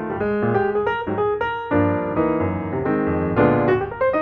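Background instrumental music in a piano style: a run of quick single notes over lower chords, the chords growing fuller a little under two seconds in.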